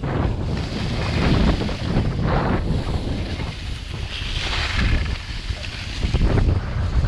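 Wind rushing over the microphone of a camera carried by a skier on a descent, a low buffeting rumble, with the hiss of skis scraping over packed snow that swells about four seconds in.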